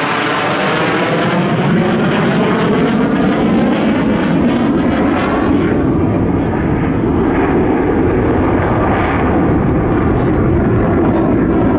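An F-15 fighter's twin Pratt & Whitney F100 jet engines roar past on afterburner, a loud, continuous noise. About halfway through the high hiss falls away and the sound turns duller as the jet climbs away.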